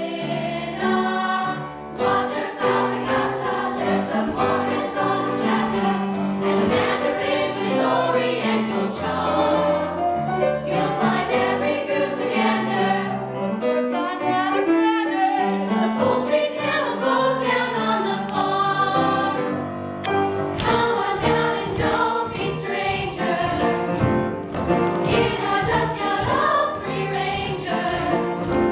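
A group of voices singing together in harmony over instrumental accompaniment, a sung ensemble number; the accompaniment takes on sharper, regular beats about two-thirds of the way through.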